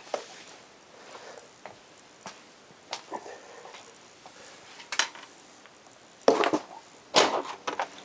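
Irregular knocks and clatters, with the loudest two coming about six and seven seconds in.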